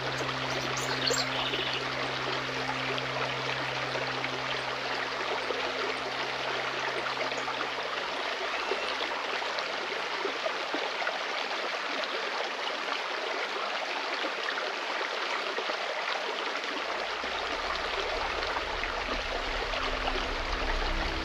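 Forest stream flowing, a steady rush of water, with a soft low music drone underneath that fades out partway through.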